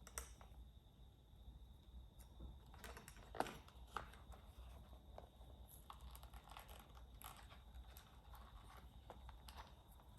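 Faint handling noises from unpacking a vintage Voigtlander camera: scattered rustles and small clicks and knocks, the sharpest about three and a half seconds in.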